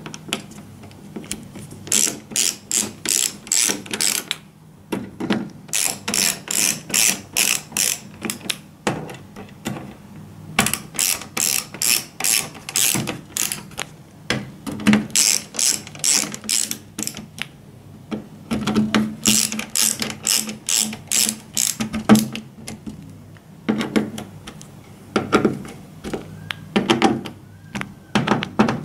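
Hand ratcheting screwdriver clicking in runs of quick clicks, about five a second, with short pauses between runs, as screws are driven into a TV's sheet-metal shield plate.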